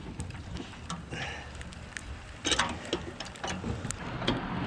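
Scattered metallic clicks and knocks of a motorcycle wheel and tire being handled on a manual tire changer, with one louder knock about halfway through.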